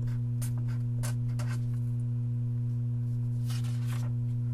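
A steady low hum throughout, under faint scratchy ticks of a pen writing on paper and, about three and a half seconds in, a rustle of a paper sheet being moved.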